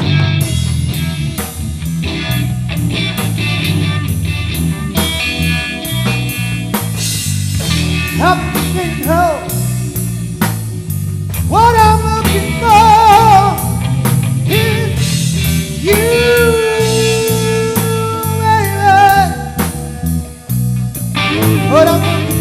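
Electric blues-rock trio playing: electric guitar lead with long, bent, wavering notes over a bass line and a drum kit.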